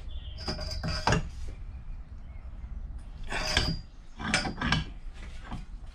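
Heavy cast-iron bench vice being tightened under load with a steel pipe slipped over its handle: short clunks and squeaks from the handle and screw as it presses metal. They come in bunches, about a second in and again from about three and a half seconds in.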